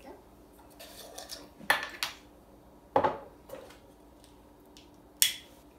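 Metal screw lid being worked off a small glass jar candle and set down on a tabletop: a brief rustle, then several sharp clicks and clinks of metal on glass and table, the loudest about two, three and five seconds in.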